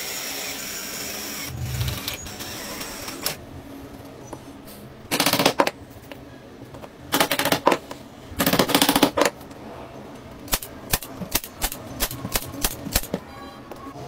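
Cordless drill driving screws into the wooden cage frame in three short bursts, followed by a run of about eight sharp taps.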